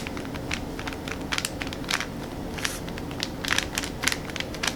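Irregular light clicks and taps, several a second, of paint supplies being handled and set out for painting.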